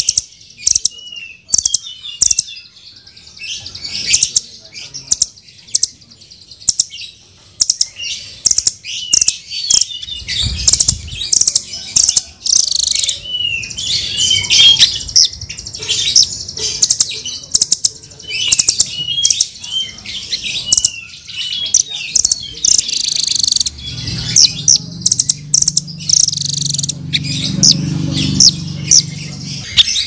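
Blue nuthatch calling: a rapid series of high, squeaky chirps and twitters mixed with sharp clicking notes, getting busier from about ten seconds in. A low hum sits under the calls for a few seconds near the end.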